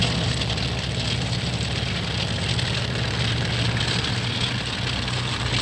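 Tracked armored personnel carriers driving in a column: a steady low engine drone under a dense rumbling hiss.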